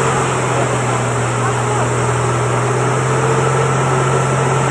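Steady rushing hiss of a high-pressure water hose spraying, over a constant low hum from an engine-driven pump.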